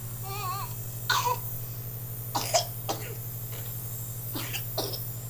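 A baby coughing and gagging in several short bursts, brought on by sticking his fingers down his throat. There is a brief wavering baby vocalisation just before the first cough, all over a steady low hum.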